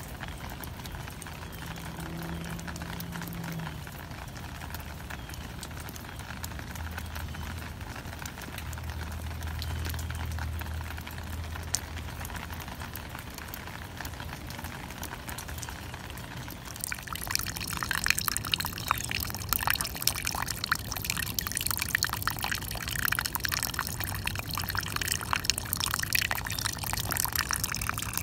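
Rain falling, an even hiss under a faint low hum; about 17 seconds in it turns louder and closer, a dense pattering and dripping of many small drops.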